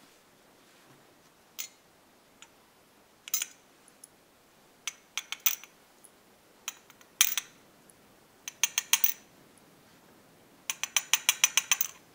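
Small metal clicks of a pin-tumbler lock cylinder's brass plug and pins tapping against a brass pinning tray as the plug is emptied of its pins. Scattered single clicks and short clusters, then a quick run of about ten clicks near the end.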